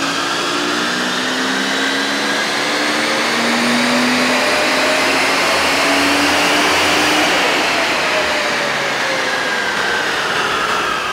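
FPV F6 ute's turbocharged 4.0-litre inline-six doing a full-throttle pull on a chassis dyno, the engine note climbing steadily through the revs to a peak about seven seconds in, then falling away as it winds down. The run makes about 228 rear-wheel kilowatts, down on what it should, which the crew suspect is due to a boost leak.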